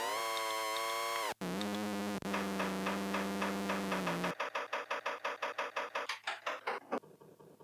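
Buzzy analog synthesizer drone over a fast ticking drum-machine beat, all electronic noise music. The drone drops to a lower steady pitch and then cuts off about four seconds in. After that the clicking beat carries on alone, about four or five ticks a second, and fades down near the end.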